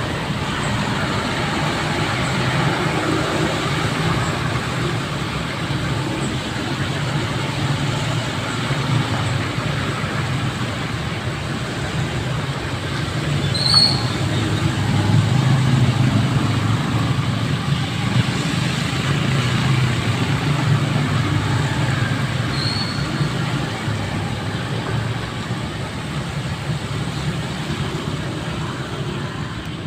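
Steady road traffic on a wet, flooded highway: engines and tyre hiss from passing vehicles, swelling a little in the middle. Two brief high-pitched chirps stand out, about halfway through and again later.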